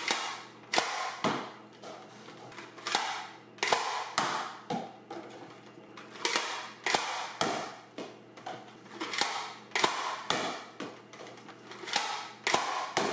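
Nerf blaster being fired again and again with Nerf Missiles: a string of sharp plastic snaps and clacks, about one or two a second, each with a short room echo.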